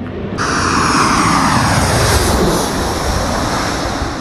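Boeing 737-800's CFM56 turbofan jet engines passing low overhead on final approach. Loud jet noise cuts in abruptly about half a second in, with a whine that falls in pitch as the plane passes, then slowly fades.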